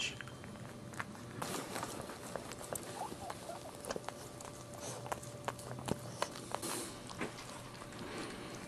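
Maltese mother dog licking her newborn puppy: an irregular run of wet licking clicks and smacks, with a few faint high squeaks.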